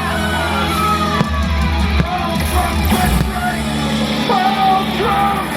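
Dramatic show soundtrack music played over loudspeakers: a heavy bass bed with high tones that slide and fall in pitch.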